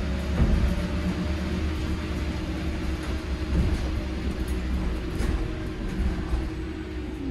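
Cabin noise inside a Heuliez GX337 Linium battery-electric city bus on the move: a low road and tyre rumble under a steady, thin whine from the electric drive, with a few light rattles.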